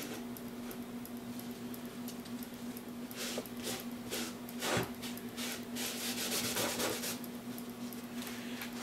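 A cloth rag rubbed over a plywood hive cover, wiping up wood glue in a run of short rubbing strokes from about three seconds in, over a steady low hum.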